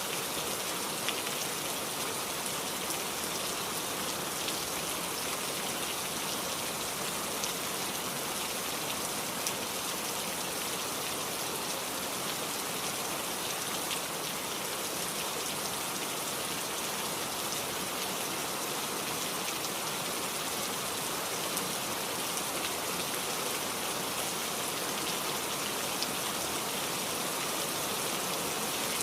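Heavy rain falling steadily, a constant hiss with scattered sharper drop impacts.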